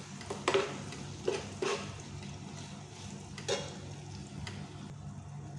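Diced onions and garlic sizzling in hot oil in a stone-coated nonstick frying pan, stirred with a metal spoon that knocks and scrapes against the pan a few times.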